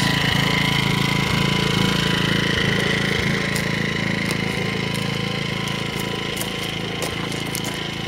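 Powermate 2000-watt inverter generator idling in eco mode: a steady engine hum with a thin high whine, growing fainter as the listener moves away from it. Crunching footsteps on gravel can be heard in the second half.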